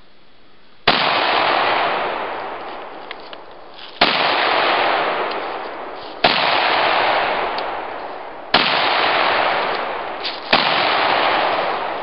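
SKS semi-automatic rifle in 7.62×39mm fired five times, a shot every two to three seconds, each sharp crack followed by a long echo that dies away over a couple of seconds.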